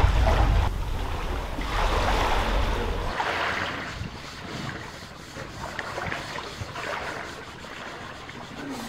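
Wind buffeting the microphone, a low rumble that stops abruptly about three seconds in, then a quieter steady hiss with a few faint ticks.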